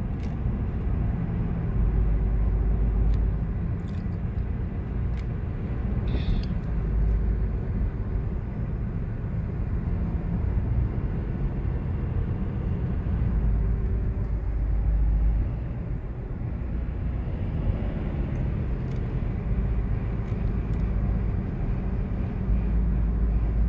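A car driving along a road, heard from inside the cabin: a steady low rumble of engine and tyre noise that swells and eases a little, with a few faint clicks.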